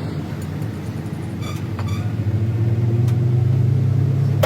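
A low, steady engine hum that grows louder about two seconds in, with a few faint clicks.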